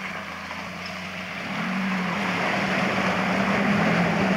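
Lada Samara (VAZ-2115) sedan's engine running steadily under load as the car wades through a deep muddy puddle, with muddy water splashing and churning around the wheels; the splashing and engine grow louder about a second and a half in.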